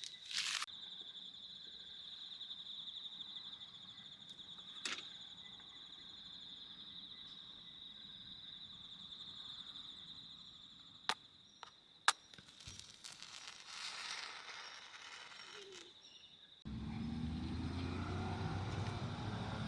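An insect trilling steadily in a high, finely pulsed tone, with a few sharp clicks. Near the end it breaks off abruptly into a vehicle engine running steadily.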